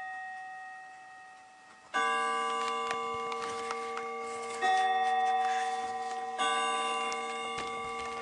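Bell-like chime tones, struck three times, each ringing several notes at once and fading slowly; an earlier chime dies away at the start.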